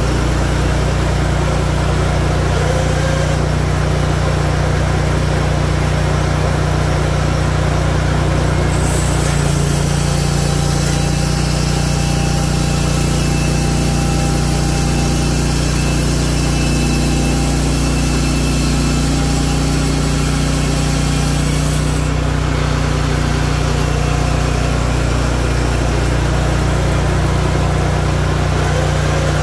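Hudson Oscar 336 bandsaw mill's engine running steadily as the saw head is pushed along a cherry log. About nine seconds in, a hiss of the band blade cutting through the wood joins the engine, lasting about thirteen seconds before it falls away.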